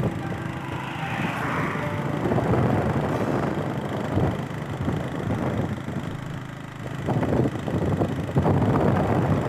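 Motorcycle riding along at speed: engine running under a rushing wind noise on the microphone that swells and dips.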